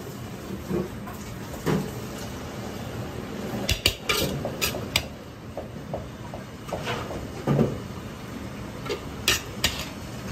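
Metal ladle knocking and scraping against a wok and a serving plate as fried rice is dished out: a run of sharp, irregular clinks and knocks over a steady kitchen hum.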